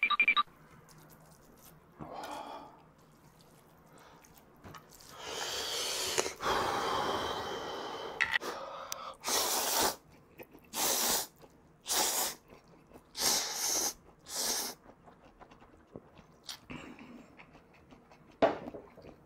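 Instant ramen noodles slurped from chopsticks in five loud, long sucks, each about half a second, coming about one a second. Before them, a few seconds in, there is a longer, quieter stretch of noisy slurping.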